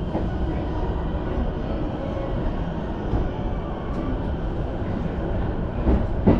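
Interior of a JR Chuo-Sobu Line local commuter train in motion: a steady low rumble of the running train, with a sharp clack near the end.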